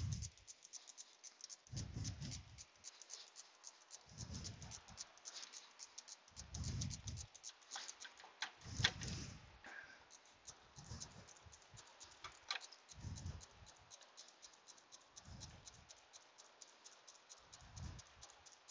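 Faint, rapid clicking of a hand socket ratchet backing out the bolt that holds the AC manifold to the compressor, with soft low thumps about every two seconds.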